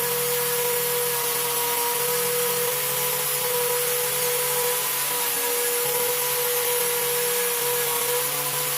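Electric power tool motor running steadily at constant speed, a steady whine over a hiss.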